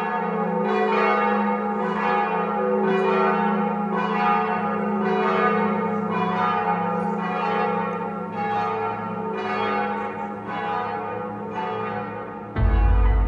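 Church bells ringing, a new strike about every second over a steady hum of the bells' ringing tones. Near the end the bells give way abruptly to music with a heavy bass.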